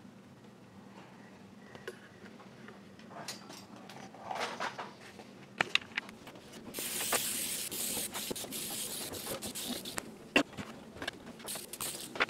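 Aerosol spray can hissing in one continuous spray of about three seconds, starting a little past the middle, with knocks and clatter of handling before it and a few sharp clicks after.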